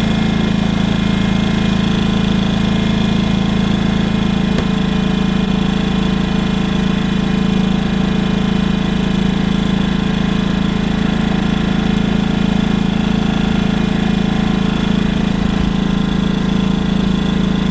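WEN 56200i 2000-watt inverter generator's small four-stroke engine running in eco mode under a light load. A steady, even hum whose speed does not change.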